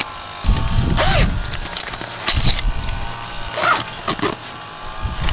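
Rustling and knocking as a plastic food container and a wooden spoon are taken out of an insulated cooler bag packed with plastic-wrapped ice packs, in several short bursts.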